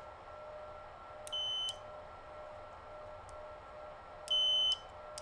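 Electronic beeper of a DDCS V3.3 standalone CNC controller giving two short, steady, high-pitched beeps, about three seconds apart, the second louder. A faint steady electrical hum runs underneath.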